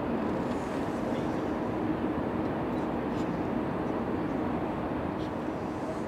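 A steady low mechanical rumble with a faint hum, from distant machinery.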